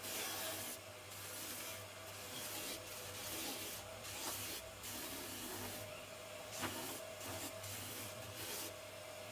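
Benchtop disc sander running with a steady motor hum while the edge of a round wooden board is pressed against the spinning sanding disc; the gritty rasp of sanding comes and goes as the board is turned by hand.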